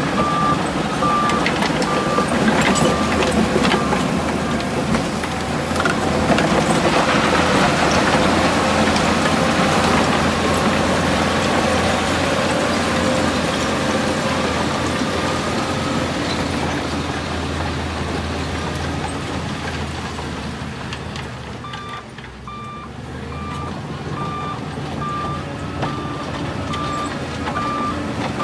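Heavy diesel earthmoving machinery running under load, with a reversing alarm beeping about twice a second for the first few seconds and again over the last third. The engine noise swells in the middle and eases off shortly before the beeping returns.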